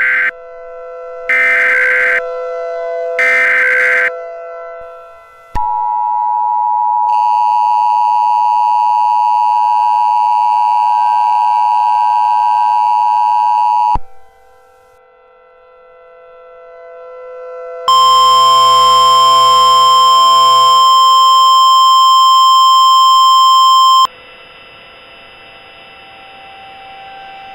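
Mock Emergency Alert System tones: three short bursts of header data tones over a faint steady tone underneath, then a long steady two-tone attention signal. After a dip, a loud layered electronic alert tone with low pulsing begins about eighteen seconds in, then drops to a quieter steady tone near the end.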